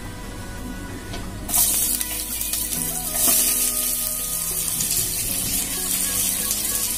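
Chopped onion, green chillies and curry leaves dropped into hot oil in a pan. They start sizzling about a second and a half in and keep frying steadily, with faint background music underneath.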